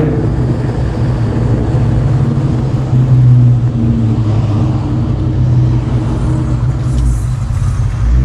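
Cammed, Whipple-supercharged 4.6-litre DOHC V8 of a Terminator SVT Mustang Cobra running in third gear at fairly steady revs through a Borla ATAK exhaust, its aftermarket cams plain in the note.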